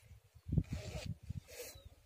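Wind buffeting the microphone in an irregular low rumble, with two short rustling hisses, one about half a second in and a second shorter one near the end.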